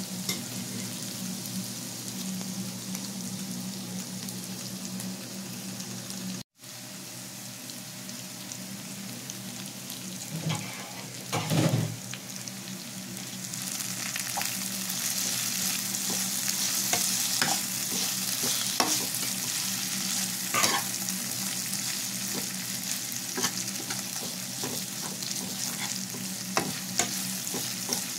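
Carrots, cauliflower and onion sizzling in a coated frying pan while a slotted metal spatula stirs them, with scattered clicks and scrapes of the spatula on the pan; the loudest scrape comes a little before halfway. The sizzle cuts out for an instant about six seconds in and is louder and brighter in the second half.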